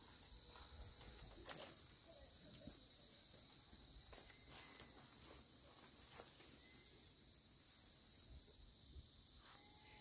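A faint, steady high-pitched insect chorus, with light footsteps and a few soft clicks over it.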